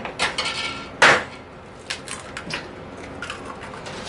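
Eggs being cracked against a mixing bowl: two sharp knocks about a second apart, then lighter clicks and taps of shell and bowl.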